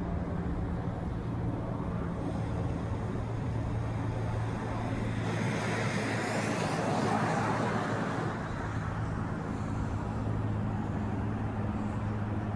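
Steady low drone of a single-engine Cessna propeller plane flying over city traffic, with a whoosh of a vehicle passing that swells and fades around the middle.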